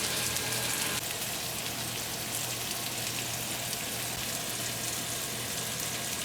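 Hamburg steak patties sizzling steadily in a frying pan, with a dense, even crackle of fat spitting.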